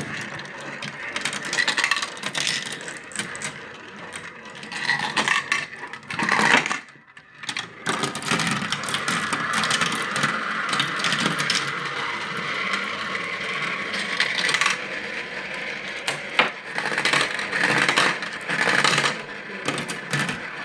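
Lots of marbles rolling and clattering down a marble run at once: a dense stream of clicks and rattles over a steady rolling sound, dropping away briefly about seven seconds in.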